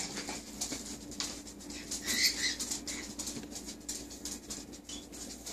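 Scattered light clicks and rustles, with a faint steady hum underneath.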